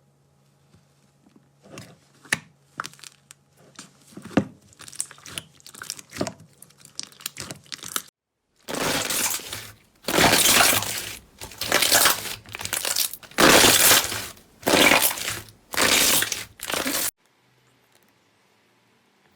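Crunchy slime being handled and squeezed by hand: first scattered light crackles, then, after a brief silent gap, a run of loud crunching, crackling squeezes about a second each, stopping near the end.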